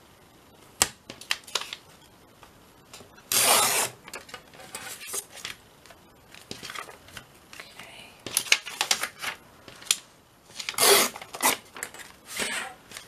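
Steel ruler clicking and clinking against the work surface while brown kraft paper tape is handled and torn along its edge, with a few short rasping rips between the clicks.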